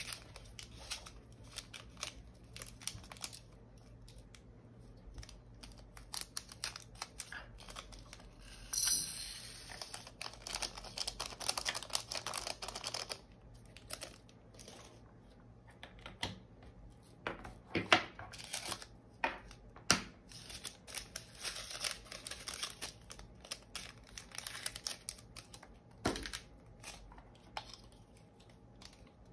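Kitting up diamond painting drills: small plastic bags crinkling and plastic containers and lids clicking and tapping. A longer rustle comes about nine seconds in and again about three seconds before the end.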